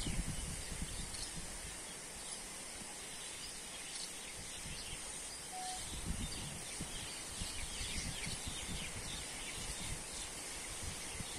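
Forest ambience: scattered bird chirps over a steady high-pitched hiss, with one short whistled note about halfway through and faint low rumbles.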